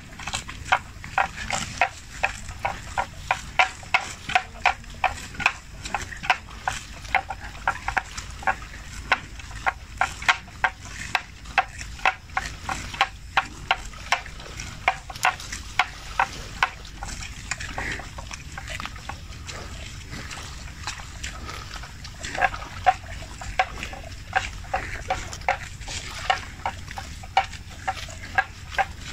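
Water buffalo grazing close by, tearing mouthfuls of grass from shallow water in a steady rhythm of sharp rips about two a second. The rips pause for a few seconds past the middle, then start again.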